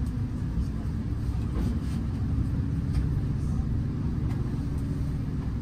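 Bus heard from inside the driver's cabin while driving: a steady low rumble of engine and road noise.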